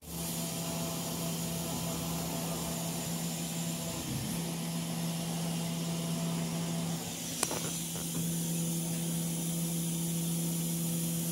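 A 50-watt CO2 laser cutter at work: the steady hiss of air assist blowing at the cutting head over a steady machine hum. There is a single short click about two-thirds of the way through.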